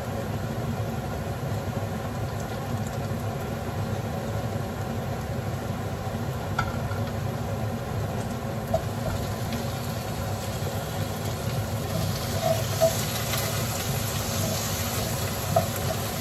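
Raw chicken pieces dropped one at a time into a hot pot of sautéing garlic, onion and ginger, with a few light knocks and a sizzle that builds in the second half, over a steady low hum.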